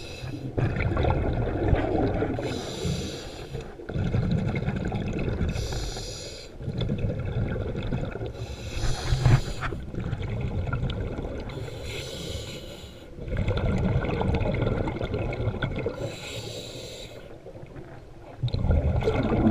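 Scuba diver breathing through a regulator, heard underwater: a hiss on each inhale followed by the low bubbling rumble of exhaled bubbles, about five breaths, one every three to four seconds.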